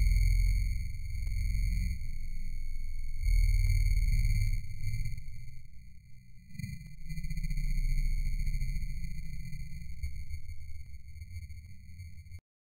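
A steady high-pitched electronic tone with a ladder of overtones, over a muffled low rumble that swells and dips, cutting off abruptly near the end.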